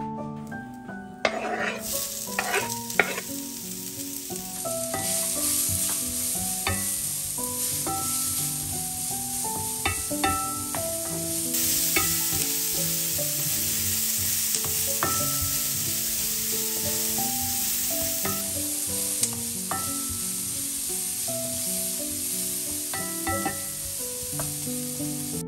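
Food sizzling in a hot frying pan, starting about two seconds in after a few knocks and louder through the middle, with background music playing.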